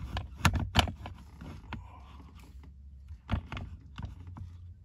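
Kydex holster knocking and clicking against a plastic under-dash holster mount as it is worked onto the clip. There are two sharp clicks about half a second in and another about three seconds in, over a low steady hum.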